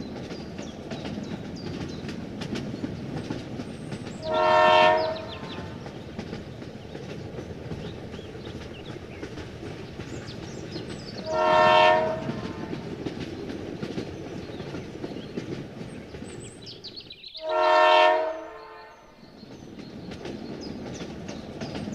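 A horn blows three times, each blast about a second long and steady in pitch, over a continuous clattering rumble like a running train.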